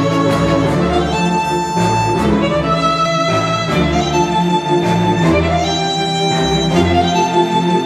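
Cinematic classical music led by violins and strings, a slow melody of long held notes over low bass notes, played back through a hi-fi bookshelf speaker.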